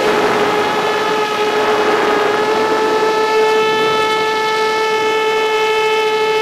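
Multirotor FPV drone's electric motors and propellers whining at a steady pitch over a hiss, edging slightly higher in the first second and then holding.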